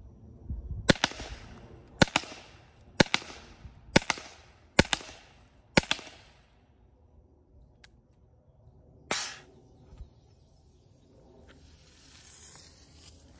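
PepperBall TCP compressed-gas launcher firing .68 cal pepper rounds at a steady pace: six sharp pops about a second apart, each with a short fading tail. About nine seconds in a longer, louder burst of hiss follows, then a faint high hiss.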